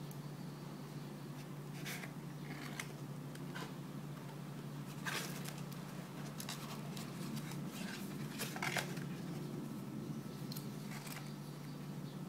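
Paper leaflets and a cardboard box being handled, giving scattered rustles and light taps over a steady low hum.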